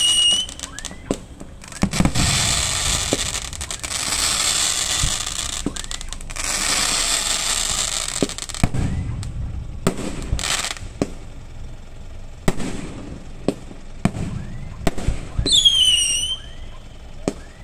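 Fireworks display: shells bursting with sharp bangs one after another, with stretches of crackling hiss between them. A whistle falls in pitch about fifteen seconds in.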